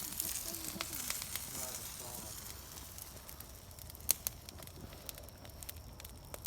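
Barbecued chicken sizzling over a campfire, with a steady hiss that fades after about three seconds. Sharp crackles and pops come from the burning wood, the loudest about four seconds in.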